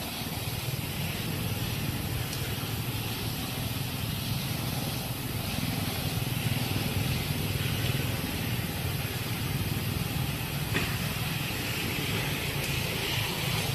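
Steady outdoor background noise: a low rumble with a hiss over it, and one faint click late on.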